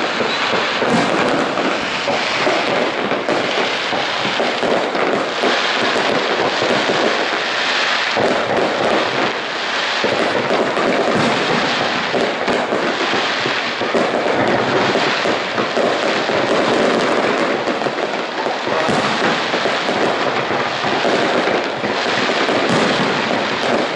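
Aerial firework shells bursting in a dense, unbroken barrage of overlapping bangs and crackles.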